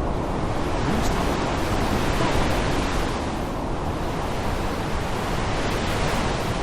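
Heavy rain falling steadily, a dense hiss whose brighter upper part eases off for a moment about halfway through and then builds again.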